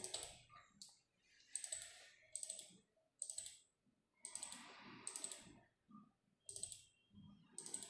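Faint clicking of a computer mouse, in short runs of a few clicks each, roughly once a second.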